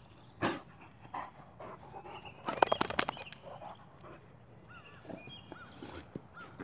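Dog vocalising in short bursts after rolling in grass, loudest as a quick rough series about two and a half seconds in. A faint high chirp repeats about twice a second near the end.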